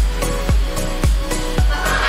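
Background music with a steady electronic dance beat, a kick drum about twice a second.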